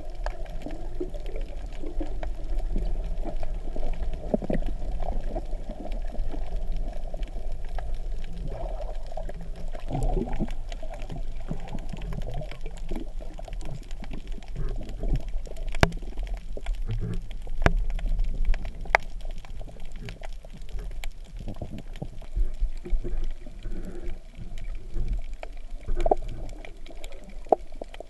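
Muffled water sloshing and bubbling around a camera held underwater or at the surface while snorkeling, with scattered sharp clicks.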